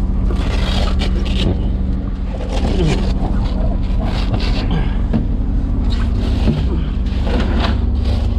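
Boat engines running steadily underway, with scraping, rustling and knocks as a deck hatch lid is lifted and an insulated fish bag full of bagged ice is pulled open and handled.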